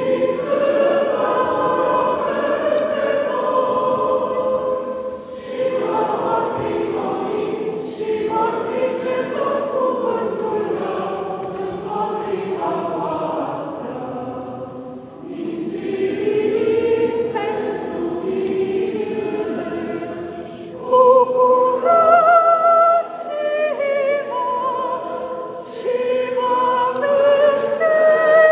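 Church choir singing, several voices together in slow held phrases. The singing grows louder, with higher sustained notes, about three-quarters of the way through.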